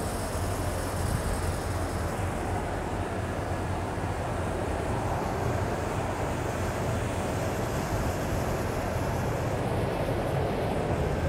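Steady low rumble of an airport apron, the running noise of aircraft and ground equipment, with some wind on the microphone.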